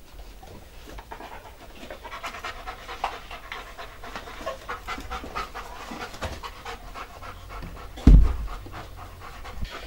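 A person panting rapidly, out of breath, the quick breaths growing stronger about two seconds in. A single heavy low thud, the loudest sound, comes a little after eight seconds.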